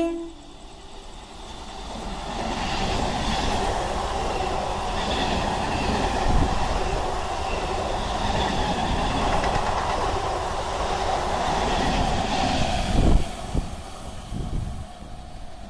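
Passenger train hauled by a three-phase electric locomotive passing at full speed: a steady rush of wheels on the rails that swells about two seconds in, holds, and fades near the end, with one loud thump shortly before it fades.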